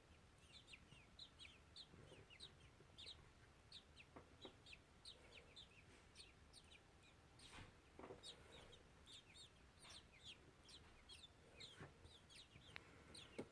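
Baby birds, taken for young robins, cheeping faintly: many short high chirps that slide down in pitch, coming irregularly about two a second. A few faint knocks, near the middle.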